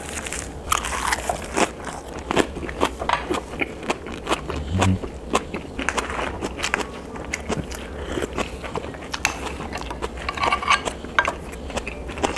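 Close-miked chewing and crunching of a lettuce wrap of raw yellowtail, with wet mouth sounds. Chopsticks click against the dishes in the second half.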